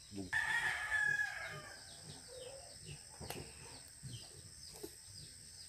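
A rooster crows once: one long call beginning about a third of a second in, dipping slightly in pitch and fading out by about two seconds. Faint chirping of small birds or insects continues underneath.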